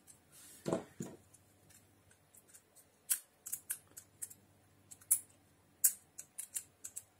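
Hard plastic clicks and snaps from a vintage Transformers Optimus Prime toy's missile launcher being handled and loaded with its missile: a soft thud about a second in, then a series of irregular sharp clicks through the second half.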